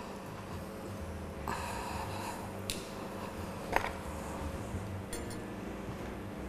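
Faint food-handling sounds over a steady low hum: hands pressing breadcrumbs onto a piece of breaded food on a cutting board, with light rustling and a couple of small clicks, the sharpest about four seconds in.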